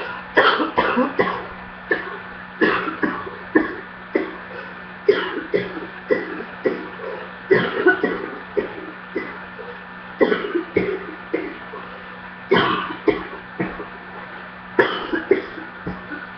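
A person coughing in repeated fits, a new burst of several coughs about every two and a half seconds, over a steady low hum.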